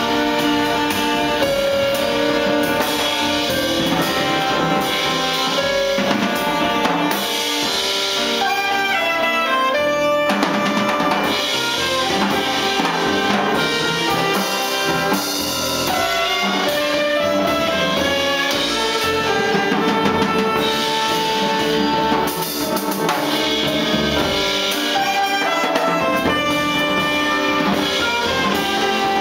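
Live jazz band playing: a saxophone melody in long held notes over electric keyboards, upright bass and drum kit.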